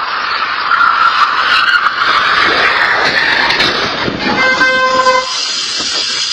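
Loud rushing vehicle noise, then a vehicle horn honks once about four seconds in, one steady note lasting under a second.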